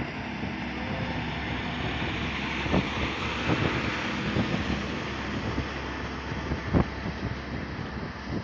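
Heavily loaded lorry driving past on the highway: its diesel engine and tyre noise swell as it goes by and ease off as it pulls away. Wind buffets the microphone in sharp thumps throughout.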